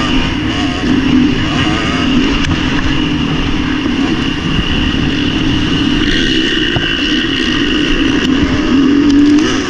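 Motocross bike engine at race pace, heard from on the bike, its pitch rising and falling as the throttle opens and closes. It climbs to its highest near the end, then drops suddenly.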